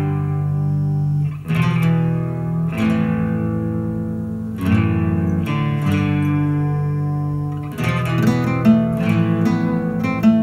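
Guitar-led music: chords struck every couple of seconds and left to ring, with quicker notes near the end.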